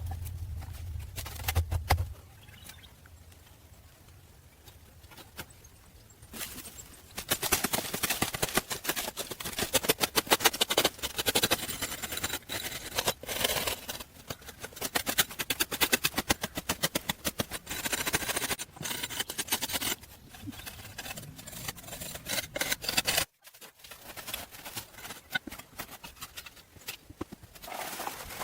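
Hand tool work: a dense run of rapid knocks and scrapes that starts about seven seconds in and cuts off suddenly, followed by sparser knocks.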